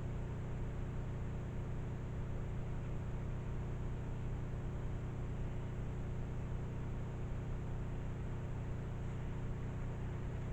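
Steady low hum over an even hiss, with no distinct events, typical of a recorder's own noise floor.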